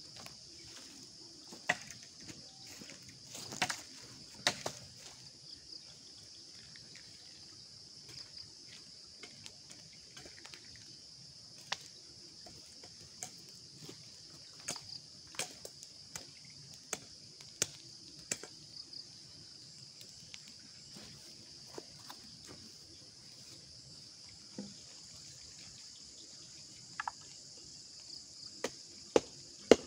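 A steady high-pitched chorus of crickets, with a wood campfire crackling in sharp, scattered pops and snaps. Near the end come a few louder knocks in quick succession.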